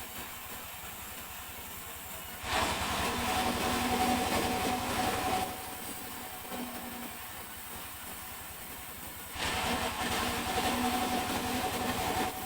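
Sawmill saw running, its pitch rising and falling twice as it cuts into a mahogany log, each cut lasting about three seconds.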